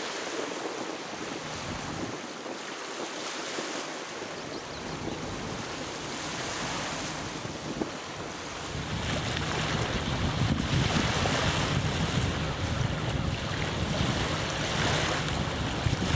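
Wind blowing across the microphone over small waves washing at the water's edge. The low wind rumble gets stronger about nine seconds in.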